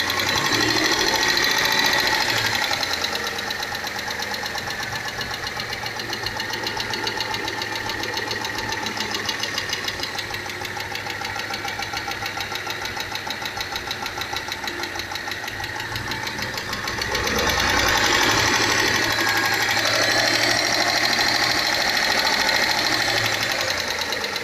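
Chrysler Pacifica's engine running with a fast, steady, rhythmic knock. It gets louder for a few seconds near the start and again for the last third.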